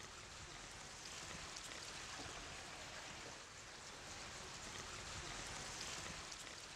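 Shallow runoff water flowing over the concrete floor of a storm-drain tunnel, a steady, even hiss.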